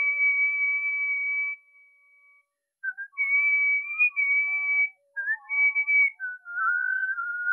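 A person whistling a melody: a long held high note for about a second and a half, a brief pause, then further phrases of shorter stepped notes.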